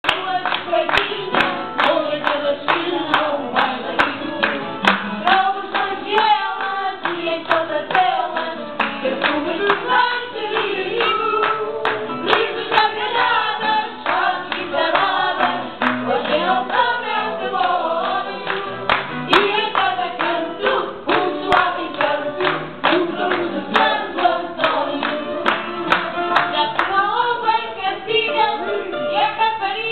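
A group of people singing together, with steady hand clapping in time.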